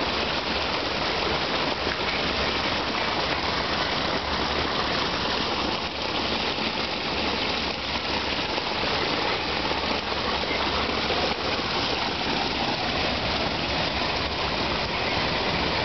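Small pondless waterfall: water spilling over rocks onto a stone bed with a steady splashing.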